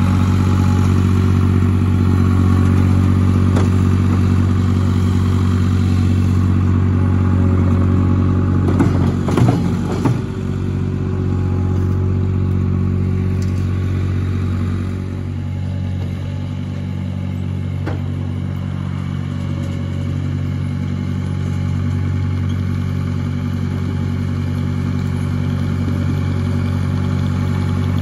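Engine of a Vermeer CTX100 stand-on mini tracked loader running steadily, with a brief burst of clatter about nine seconds in.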